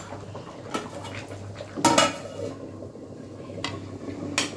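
Several sharp clinks of a steel spoon against stainless steel pots and a steel plate lid, the loudest about two seconds in.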